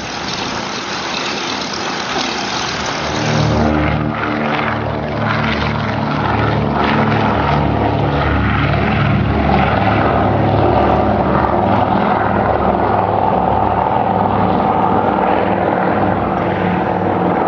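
Radial piston engine of a propeller aircraft in flight, a steady drone that grows much louder about three seconds in and then holds.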